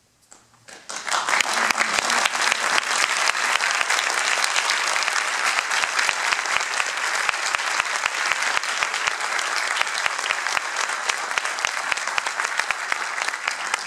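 Audience applauding: a few scattered claps after a moment of near silence, swelling into full, steady applause about a second in.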